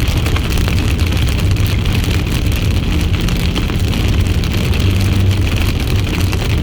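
Steady road and engine noise inside a moving car's cabin: a low drone with a hiss above it.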